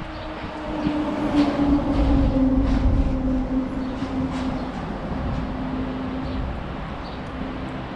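A vehicle passing by, its engine hum falling slowly in pitch as it goes past, loudest a second or two in and then fading, with a few scattered clicks.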